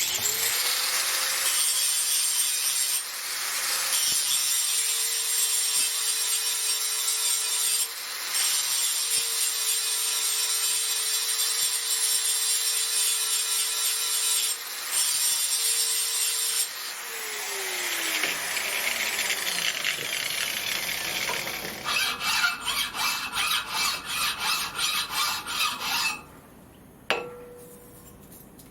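Metal lathe running under cut as a thread is cut, a steady motor hum under loud scraping of the cut, broken briefly three times. The motor then switches off and spins down with a falling whine, followed by a run of quick scraping strokes, about three a second.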